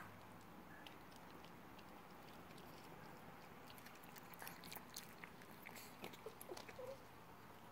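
Faint play-biting and mouthing of Pomeranian puppies wrestling on towels: a scatter of small clicks and rustles, busiest from about halfway through.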